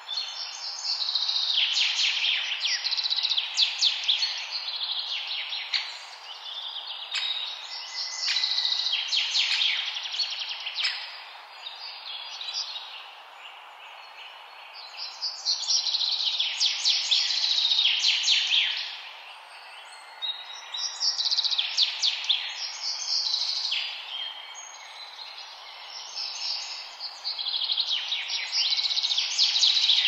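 Songbirds singing in repeated bouts of rapid, high chirps, each lasting a few seconds, with short pauses between, over a steady background hiss.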